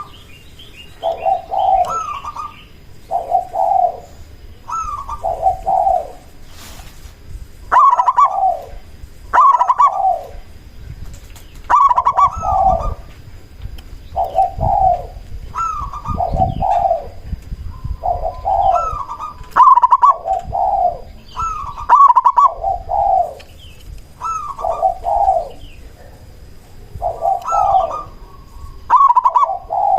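Zebra dove (perkutut) cooing over and over: short rolling phrases of a few notes, repeated about every one to two seconds, the lure-style song meant to set other zebra doves answering.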